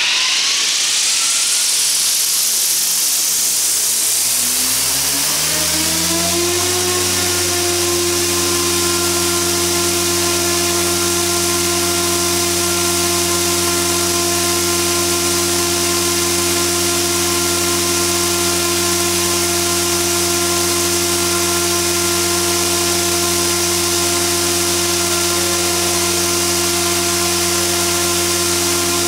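ALZRC Devil 420 Fast electric RC helicopter spooling up on the ground on its third governor setting: the whine of motor and rotor rises in pitch for about six seconds, then holds steady over a hiss once the governor settles at a flat-line headspeed of about 2,725 rpm.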